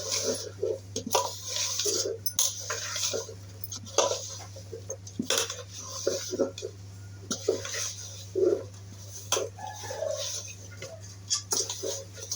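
Fish pieces being mixed with masala in a bowl: irregular clinks, knocks and scrapes against the vessel, over a steady low hum.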